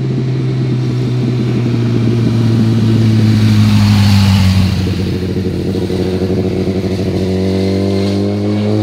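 Sport motorcycle engine at steady throttle passing close by, loudest about four seconds in, then pulling away with the engine note rising near the end as it accelerates into a hairpin bend.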